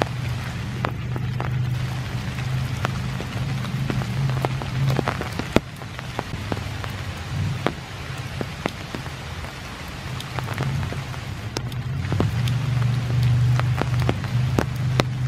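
Heavy rain falling through trees: a steady patter with many separate drops tapping sharply close by, over a steady low rumble.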